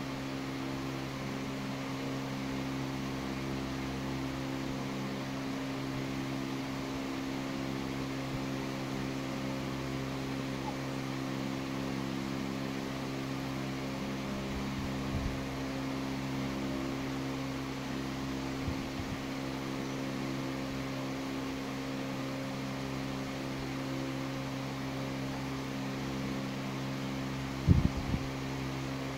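A steady machine hum with several fixed low tones, like a fan or motor running. A few soft low thumps come midway, and a louder double thump comes near the end.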